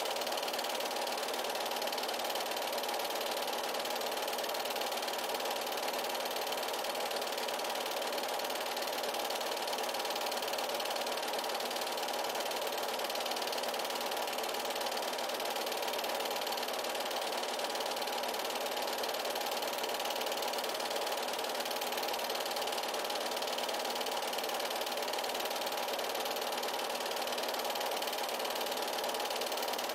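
8mm film projector running steadily, an even mechanical whirr that holds the same level throughout.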